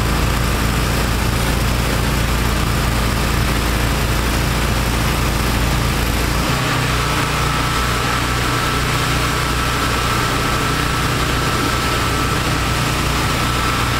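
Trailer-mounted pressure washer and wastewater vacuum recovery engines running steadily. About six and a half seconds in, the engine note changes and a thin steady whine comes in.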